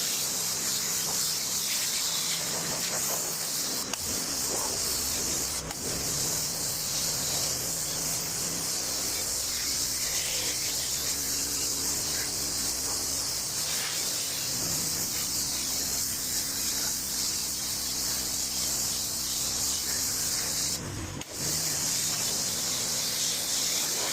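High-pressure water from a 2.5 gallon-per-minute pressure washer's wand blasting concrete, a steady hiss that stops for a moment near the end before resuming.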